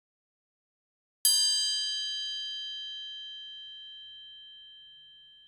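A single bell ding sound effect, struck about a second in and ringing down slowly over about four seconds. It is a subscribe-reminder chime.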